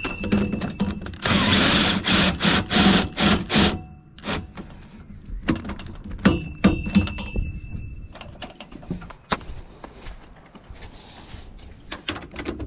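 Knocks, clunks and rattles of gear being handled while packing up a campervan, with a steady high whine twice, the second lasting about two seconds.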